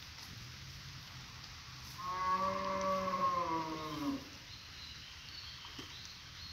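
A brown humped cow mooing: one call of about two seconds, starting about two seconds in.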